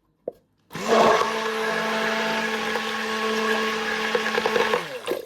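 Immersion blender running in short bursts, blending sea moss into the oils for a cold-process soap batch. It starts about a second in, runs steadily for about four seconds, and winds down with a falling pitch near the end.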